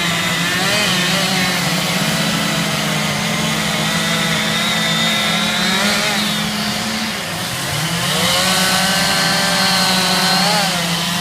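Chainsaw running at high revs while carving wood, easing off briefly about two-thirds of the way through before revving back up; the sound cuts off abruptly at the end.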